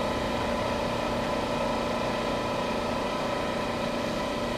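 An engine running steadily at an even speed: a constant hum that neither rises nor falls.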